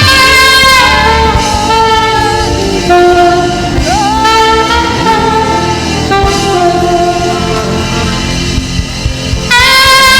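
Saxophone playing a gospel melody over a backing band, with long held high notes and a note that slides up into pitch about four seconds in.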